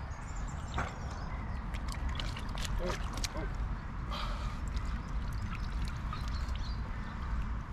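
Wind rumbling on the microphone, with water splashing and dripping in a wet carp unhooking mat as a common carp is handled and lifted out; the splashes and drips come as a cluster of short sharp sounds in the middle.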